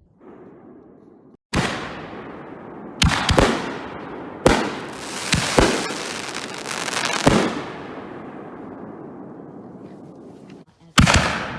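Consumer canister-shell fireworks going off: a sharp bang about a second and a half in, then a run of bangs over the next six seconds, each trailing off in a long fading hiss, and another sharp bang near the end.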